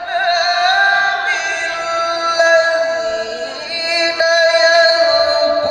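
A male qari reciting the Quran in the melodic tilawah style, amplified through a microphone. He holds long ornamented notes that waver and slide between pitches, with a brief break just before four seconds in.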